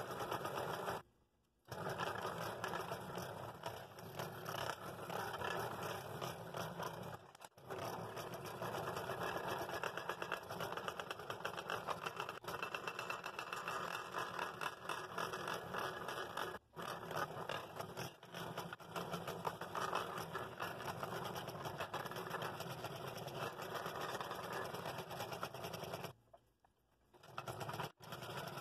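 Scroll saw running, its blade cutting slowly through a thick poplar blank (about 1.25 inches) for a compound cut. The sound is steady and rapid. It stops briefly about a second in and for a couple of seconds near the end.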